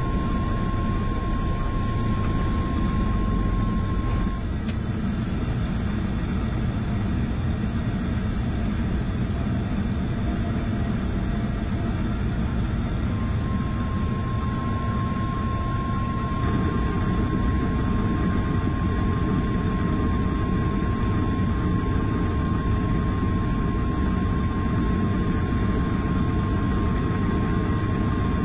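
Ekolot Kr-030 Topaz ultralight's engine and two-blade propeller droning steadily in flight, heard from inside the cockpit along with airflow noise. A thin, steady high tone runs over the drone, dropping out for several seconds in the middle.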